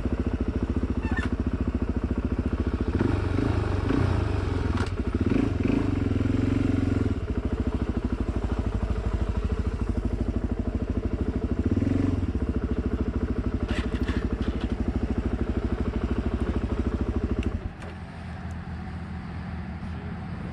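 Suzuki DR-Z dirt bike's single-cylinder four-stroke engine running, revved up for a few seconds and again briefly, then dropping suddenly to a quieter sound about three-quarters of the way through.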